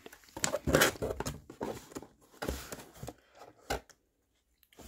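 Handling noise from a phone being moved about: an irregular run of knocks, rustles and clicks, with one sharp knock about three and a half seconds in.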